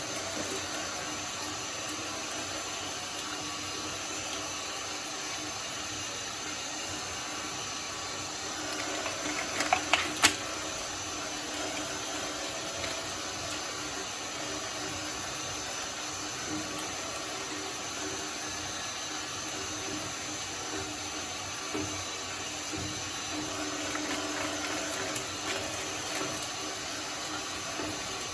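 Shredder running steadily with a hum and an even wet-sounding hiss, and a short cluster of sharp cracks about ten seconds in.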